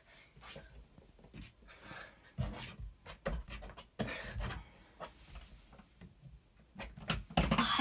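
Faint scuffs and knocks of hands and shoes on the holds of an indoor climbing wall, with a few louder thuds as the climber moves.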